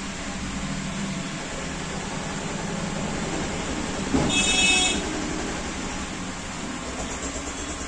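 Steady street traffic noise, with a vehicle horn sounding once, briefly, about four seconds in. The horn is the loudest sound.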